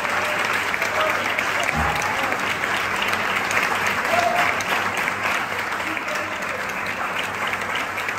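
Audience applauding steadily, with a few voices calling out among the clapping.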